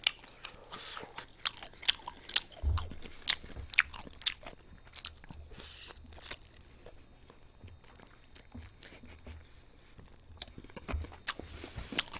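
A person chewing and biting into oven-roasted cheese chicken close to the microphone, with many sharp, irregular crunches of the crisp coating.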